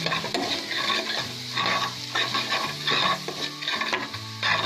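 A metal spoon stirs and scrapes a frying onion-tomato masala in an aluminium pan in repeated strokes, over the steady sizzle of the frying.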